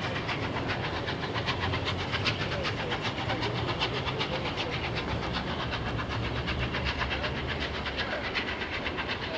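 A Bulleid Battle of Britain class steam train pulling away, its coaches' wheels clicking rhythmically over rail joints and points above a steady low rumble.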